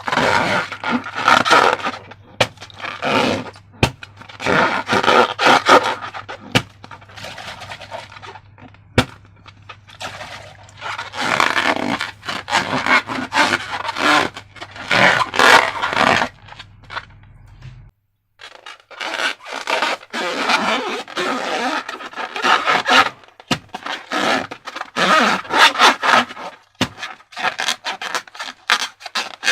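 Slime being scraped and stirred in a container, in irregular quick strokes with short pauses between them.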